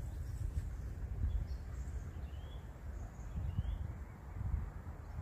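Wind buffeting the microphone in an uneven low rumble, with a few faint short bird chirps about two and a half and three and a half seconds in.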